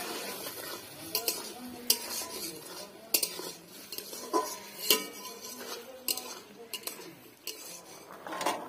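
A metal spatula stirring and scraping potato pieces in a steel kadai, with irregular clinks of metal on metal over a faint sizzle. Near the end the steel lid is handled with a short clatter.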